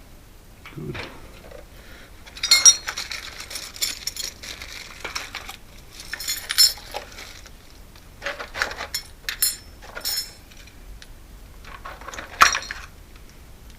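Metal lock parts and tools clinking and rattling in the hand while a screen door lock is worked on, with sharp clicks in short clusters throughout and the loudest near the end.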